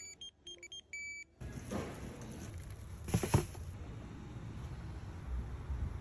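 A run of short electronic beeps of varying length during the first second. Then a steady rustling handling noise begins, with a louder crunch about three seconds in.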